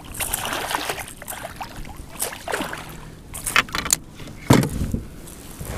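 Knocks, clatter and rustling in a fishing kayak as a pickerel is landed and brought aboard, with one heavy thump about three-quarters of the way through.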